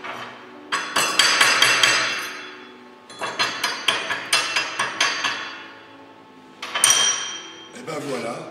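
Quick runs of hammer taps on steel, several strikes a second, with the metal ringing briefly after each. Near the end one harder strike rings on longer.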